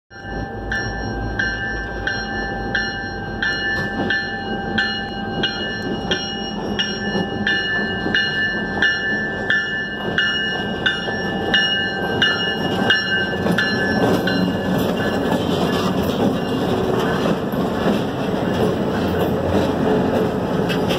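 Ontario Northland diesel locomotive pulling into a station, its bell ringing about one and a half strokes a second. About two-thirds through the bell stops, and the engine and the wheels on the rails grow louder as the locomotive passes close by.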